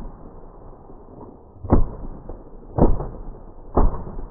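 Three shotgun shots about a second apart, fired at flying geese.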